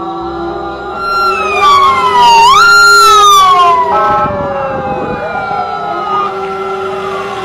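Police sirens wailing, several overlapping, their pitch sliding down and jumping back up, loudest about two to four seconds in, over steady background music.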